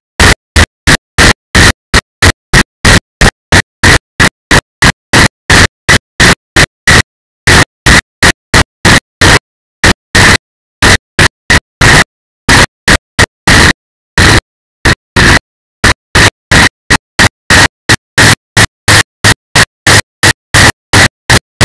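Loud harsh static chopped into short bursts about three times a second, with dead silence between them and a steady high whine inside each burst. It is a glitching, corrupted audio track from the onboard camera, not a sound of the ride itself.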